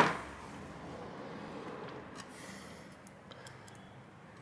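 Low hiss with a few faint, sharp clicks in the second half as small screws and a screwdriver are handled against a graphics card's backplate.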